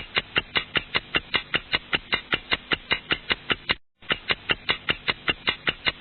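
A rapid, even run of sharp clicks, about five a second, over a low steady hum, breaking off briefly about four seconds in.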